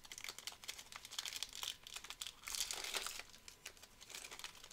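Plastic trading-card pack wrapper crinkling and tearing as it is opened by hand: a run of quick crackles, loudest about two and a half seconds in.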